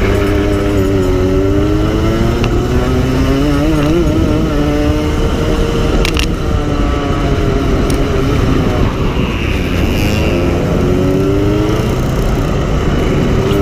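Go-kart engine running hard, heard from on board the kart, its pitch dropping and climbing again and again as the driver lifts and gets back on the throttle through the corners.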